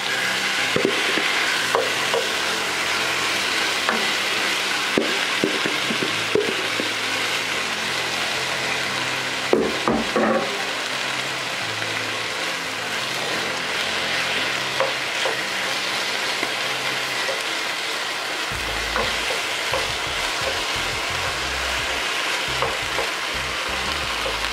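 Seasoned boneless chicken pieces sizzling in hot oil and garlic in a nonstick skillet, a steady frying hiss that starts suddenly as the chicken goes in. A few knocks in the pan come about five seconds in and again around ten seconds in.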